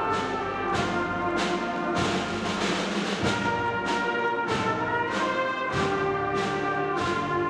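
School band playing music led by brass, with a steady beat.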